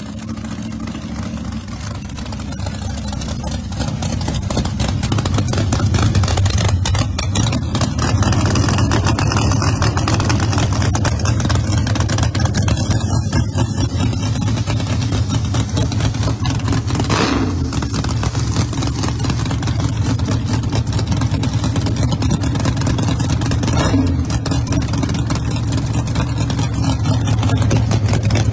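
Drag racing car engine running at idle with a steady low rumble, with two short sharp noises in the second half.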